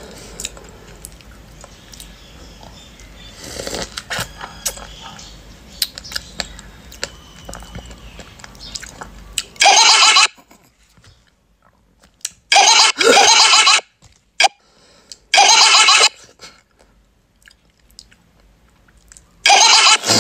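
A person eating a strawberry: faint mouth clicks of chewing at first, then four loud, short eating noises about three seconds apart in the second half.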